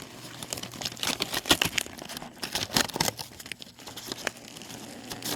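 Packaging crinkling and rustling as it is handled and opened, a dense run of sharp, irregular crackles.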